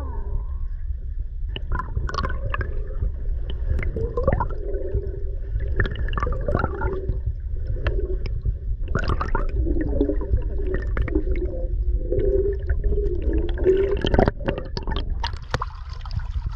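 Muffled, underwater-sounding water noise: gurgling with a constant deep rumble and wavering tones. Sharp splashy clicks come more often near the end, as the fish on the line is brought to the surface.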